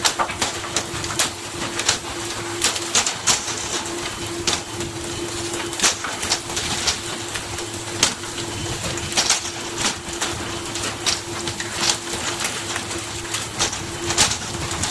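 Steady machine hum, as of a fishing boat's engine, under irregular sharp clicks and knocks that come every second or so.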